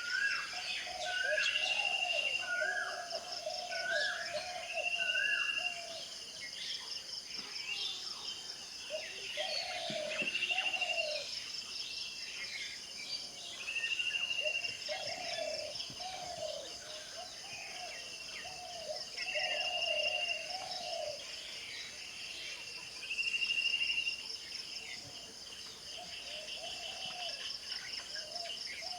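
Several birds calling and singing over a steady, fast-pulsing chorus of crickets or cicadas: a short hooked call repeated about once a second for the first few seconds, a high trilled phrase recurring every few seconds, and lower warbling calls throughout.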